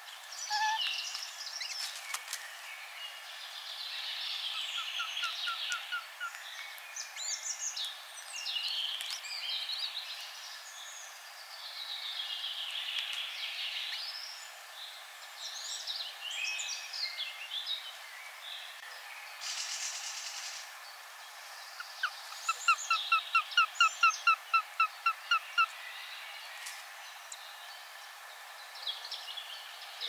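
Other birds singing in the surrounding woodland throughout, and a Eurasian sparrowhawk calling at its nest: a rapid, even series of about a dozen calls, about four a second, a little past two-thirds of the way through, with a shorter, softer series earlier on.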